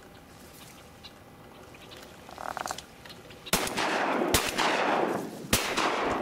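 Three shotgun shots fired at a pair of ducks flying overhead, the second less than a second after the first and the third about a second later, each followed by a long echoing wash. A short buzzy duck call sounds just before the first shot.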